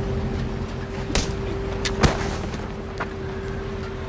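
A steady low rumble with a constant hum, and a few sharp knocks over it, the loudest about two seconds in.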